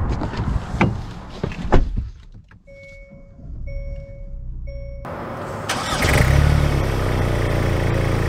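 A few clicks inside the Hyundai Santa Cruz's cabin, then three beeps of the dashboard warning chime. About five seconds in, the truck's turbocharged four-cylinder engine comes in loud and runs steadily, starting up.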